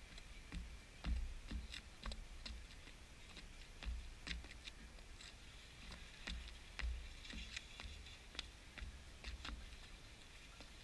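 Irregular light taps of a footbag striking the sides and tops of sneakers, about one or two a second, mixed with soft thuds and scuffs of shoes landing on asphalt.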